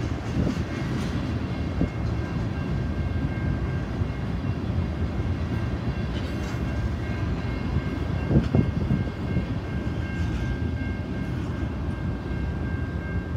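Freight train tank cars rolling past: a steady rumble of wheels on rail, with a thin steady high tone through most of it and a louder clunk about eight seconds in.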